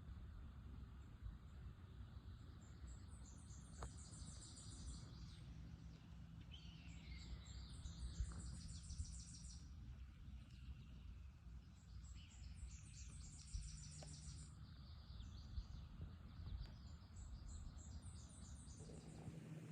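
Small songbirds singing high, thin trills of rapid notes that come several times, some with a falling slur, over a low steady rumble.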